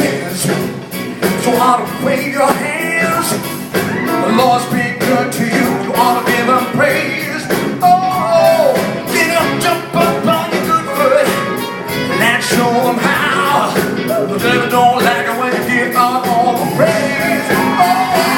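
Gospel choir and band performing live: voices singing over the band.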